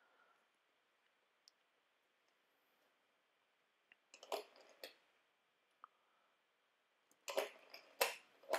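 Quiet room tone broken by a few sharp clicks and taps: two about four seconds in, then a quicker cluster of three or four near the end.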